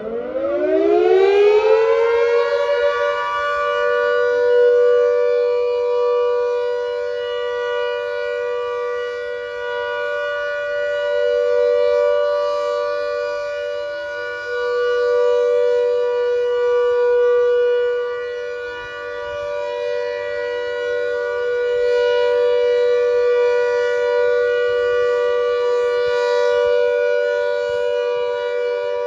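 Klaxon Signals GP8 (General Purpose 8) warning siren sounding the Alert signal. It winds up fast, its pitch rising over the first two seconds, then holds one steady tone at full speed while the loudness wavers slowly.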